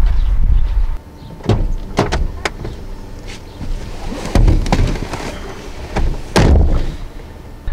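A steady low rumble that stops abruptly about a second in, then car door sounds as someone gets into a sedan: three sharp clicks of the handle and latch, a thump near the middle, and a louder thump of the door shutting about six seconds in.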